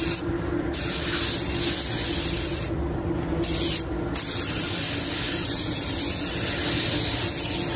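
Automotive paint spray gun hissing steadily as the colour coat is sprayed, the hiss cutting out briefly three times between passes. A faint steady low hum runs underneath.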